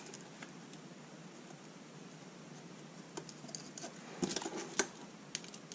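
Small metal nuts being put onto machine screws by hand on a plastic rail frame: a few faint clicks and taps, most of them in a short cluster about four to five seconds in.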